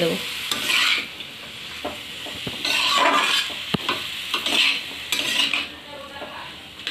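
Metal spatula scraping and stirring chopped bottle gourd in a metal kadai while it fries in oil with spices, the food sizzling. Several scrapes come about a second apart, with one sharp click near the middle.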